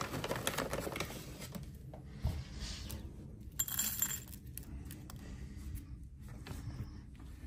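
A hand rustling in a plastic bag of dry guinea pig food pellets, then the pellets rattling and clinking as they are dropped into a small food bowl. The sound is a loose run of small clicks and rustles.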